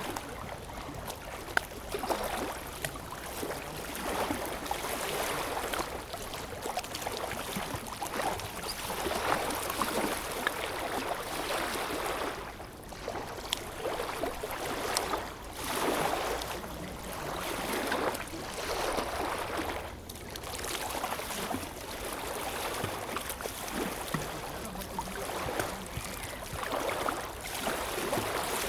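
Small lake waves lapping and splashing at the shore, in swells that rise and fall every second or two.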